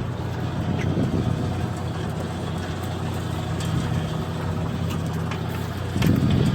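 Fishing boat's engine running steadily with a low, even drone, and a few light clicks or knocks on deck. Near the end the low rumble gets louder and rougher.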